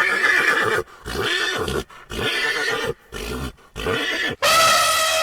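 A horse calling: a series of short, rough neighs or snorts about a second apart, then a longer, steadier whinny starting near the end.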